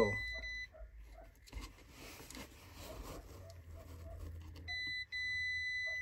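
Multimeter continuity beeper sounding a steady high beep while the probes sit on the terminals of a furnace's condensate pressure switch, showing that the switch is now closed. A sharp knock comes at the start, the beep cuts off about half a second in and comes back near the end with a brief break.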